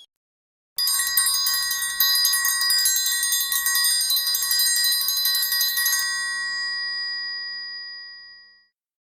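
Triangle ringing under a rapid roll of strikes for about five seconds, then left to ring out and fade away.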